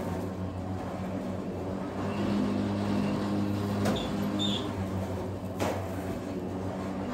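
Kitchen knife slicing geoduck on a plastic cutting board, the blade tapping the board sharply twice in the second half, over a steady low machine hum.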